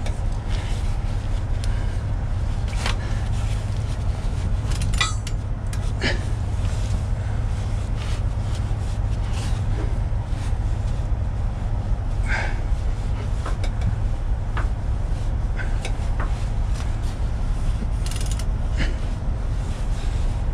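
Hand wrench clicking, knocking and scraping on metal fittings of a truck's air dryer and purge valve, in scattered short strokes with a quick run of clicks about five seconds in, over a steady low rumble.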